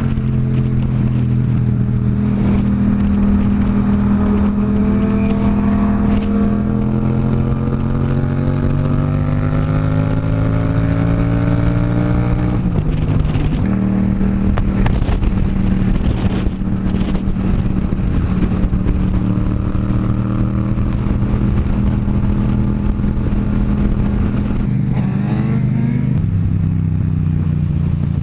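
Motorcycle engine pulling hard in fourth gear. Its pitch climbs slowly for about ten seconds, drops at an upshift about 13 seconds in, then holds steady at cruising speed, all under constant wind noise.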